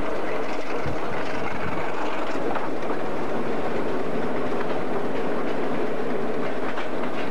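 A train in motion, heard from on board: the steady rumble of a passenger train hauled by a General Electric U12 diesel locomotive, with the clickety-clack of wheels on the rail joints.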